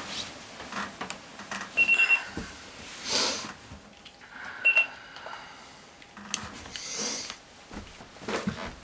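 Bedside alarm clock beeping in quick groups of about four high, even beeps, stopping after a shorter last group about five seconds in. Rustling and handling noises in between.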